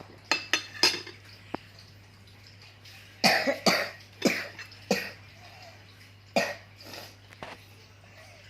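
A person coughing: three quick coughs at the start, then a fit of about six coughs a few seconds later. There is one sharp click in between.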